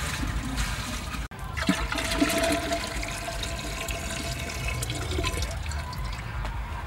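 Water pouring in a stream from a metal can's spout into an earthenware jar, splashing into the water already inside.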